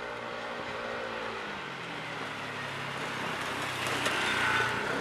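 Urban road traffic: vehicle engines running steadily, with a vehicle passing close that rises to the loudest point about four seconds in.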